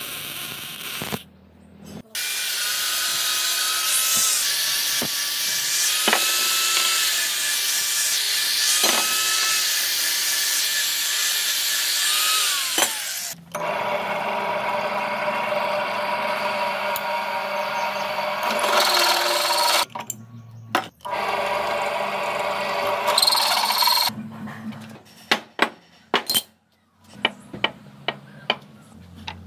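A long stretch of loud, hissing metalwork noise. Then a bench drill press runs steadily, drilling a steel part. Near the end come a series of light metallic clinks as small steel tubes are set down on a wooden bench.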